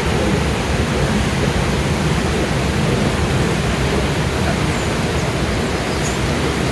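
High Force waterfall on the River Tees: a steady, loud rush of water falling 21 metres over the rock.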